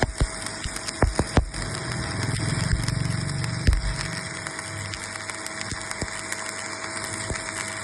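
CO2 (MIG) welding: a steady hissing arc with a constant hum, with sharp clicks and knocks in the first second and a half and a louder low rumble swelling for a couple of seconds.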